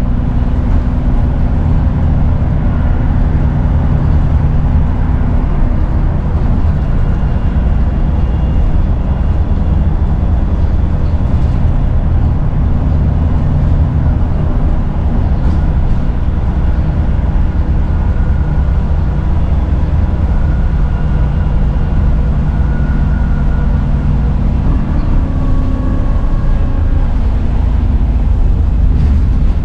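Dennis Trident 2/Enviro 400 double-decker bus's diesel engine running steadily under way, with a slight turbo whistle heard as faint high tones that rise and fall over a constant low drone.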